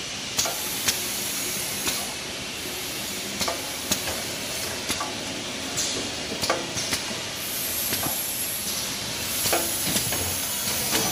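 Kitchen towel roll bundle packing machine and its conveyor running: a steady mechanical noise with irregular clicks and clacks about once a second.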